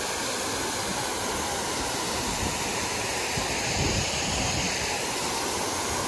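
Water pouring over a wide stepped stone waterfall: a steady, even rushing.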